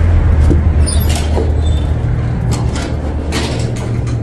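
Glass entrance door with metal push bars being pushed open, with a few short clunks and knocks, over a steady low rumble that drops away as the inner door is reached.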